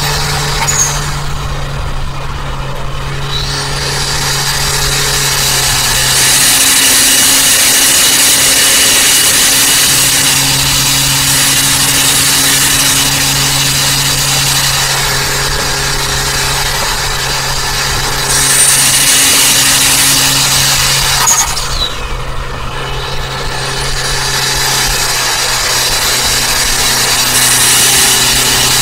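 Turbocharged Toyota Avanza driving at speed, heard from inside the cabin: a steady engine drone under loud road and wind noise, with the engine note stepping in pitch a few times. The noise eases briefly about two seconds in and again about twenty-two seconds in.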